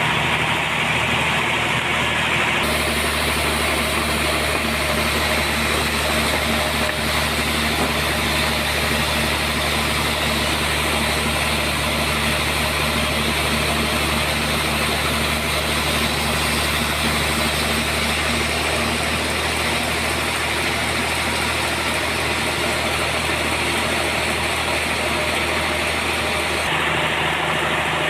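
Sawmill running steadily with a constant machine hum; a couple of seconds in, a higher hiss joins as the saw cuts through trembesi (rain tree) wood, and it fades again near the end.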